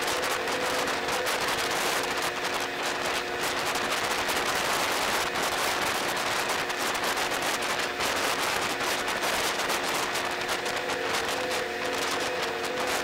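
Steady rushing noise on the open deck of a moving car ferry, with a faint steady machinery hum beneath it and a light crackle throughout.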